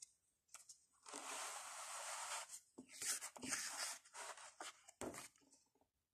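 Faint handling of a picture book and the paper page being turned: a stretch of rustling about a second in, louder rustles around three seconds, then a few soft clicks.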